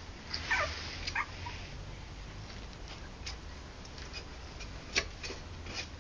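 Young puppy whining twice in short squeaks that fall in pitch, about half a second and a second in, with scattered light clicks and a sharper tick about five seconds in, over a low hum.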